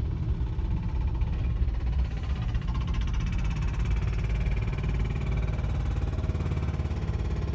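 Heavy construction machinery's diesel engine running with a steady, fast, even knocking pulse.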